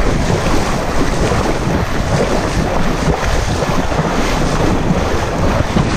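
Sea water splashing and surf washing right around the microphone at the waterline, with wind buffeting the microphone.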